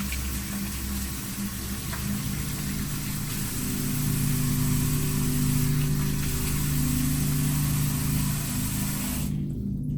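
Low droning tones held steadily over a constant hiss; the pitches shift a few seconds in, and the hiss cuts off suddenly near the end.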